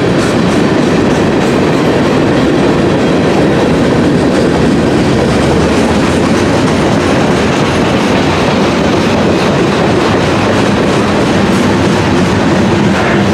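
Train cars rolling steadily past, a loud, unbroken sound of wheels running on the rails.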